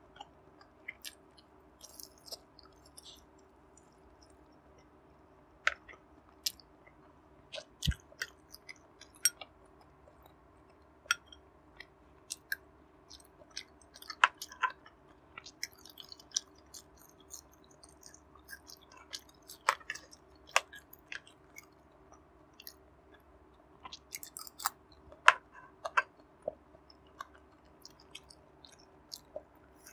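Close-miked chewing of barbecue-glazed pork belly: irregular short wet clicks and smacks of the mouth, with a faint steady hum underneath.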